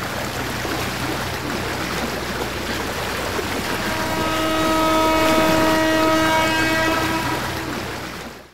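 The Disney Wonder cruise ship's horn sounds one long, steady blast, starting about four seconds in, over a steady rush of wind.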